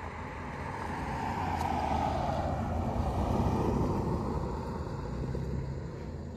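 A road vehicle driving past: its noise swells, peaks about three to four seconds in and fades away, with a tone that drops in pitch as it goes by.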